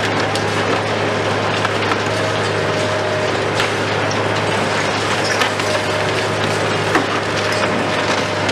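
Hitachi KMC 520 BTV long-reach demolition excavator crushing the concrete of a building's upper floors. A steady machine hum runs under continuous crackling and crumbling of breaking concrete and falling rubble, with sharp cracks now and then, the strongest about seven seconds in.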